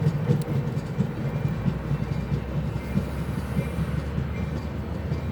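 Train running with a steady low rumble and a few faint clicks in the first second.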